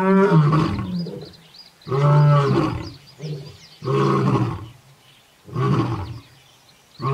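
Male lion roaring: a series of deep calls about every two seconds, the first two the loudest and the later ones a little weaker.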